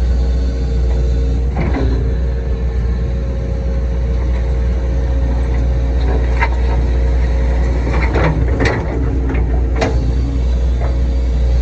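CAT 312 excavator's diesel engine running steadily while it grades soil, with scattered short knocks and clanks from the working bucket and boom, most of them between about six and ten seconds in.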